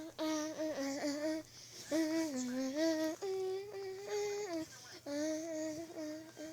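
A person humming a slow wordless tune, in held notes that step up and down with short breaks between phrases.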